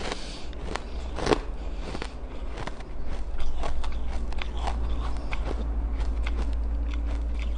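Teeth biting into and crunching frozen ice sticks: a string of crisp cracks and crunches, the sharpest about a second in. A steady low hum runs underneath.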